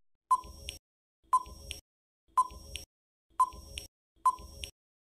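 Quiz countdown-timer sound effect: five short ticks, about one a second, each a brief beep-like blip followed by a softer click, counting down the seconds to the answer.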